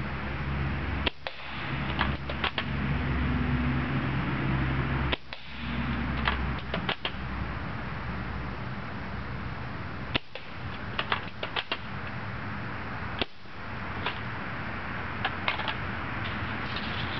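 UTG MK96 spring-powered airsoft bolt-action rifle being fired and cocked: short bunches of sharp clicks and snaps every three to four seconds, over a steady low hum.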